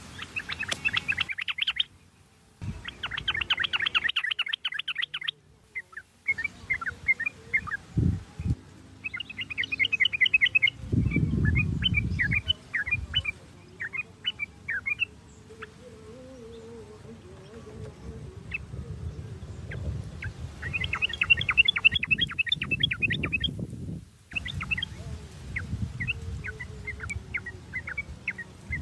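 Yellow-vented bulbul (trucuk) singing: bursts of fast chattering trills alternating with spaced, sharp chirping notes, over low rumbling noise at times.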